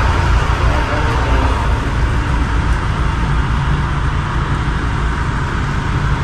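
Steady low engine rumble with a hiss of noise over it.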